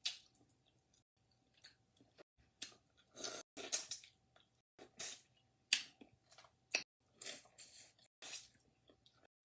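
Close-up eating of boiled crawfish: chewing, with the shells crunching and cracking in short irregular bursts.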